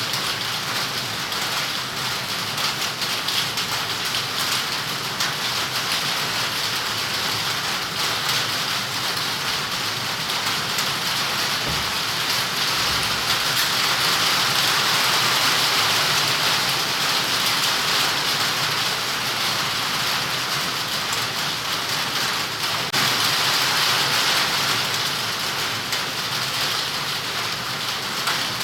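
Heavy rain falling steadily, a dense hiss of drops hitting surfaces, swelling a little louder partway through.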